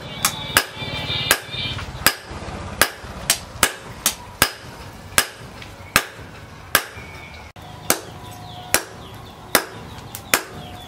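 Hand hammer forging a red-hot knife blade on a steel anvil: a steady beat of sharp metal blows, about one and a half a second, some leaving a short ring.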